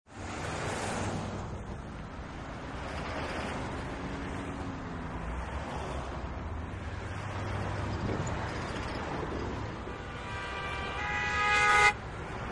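Rush-hour city traffic: a steady wash of passing cars that swells and fades. Near the end a car horn sounds, held for about a second and a half and growing louder, the loudest sound, then cuts off abruptly.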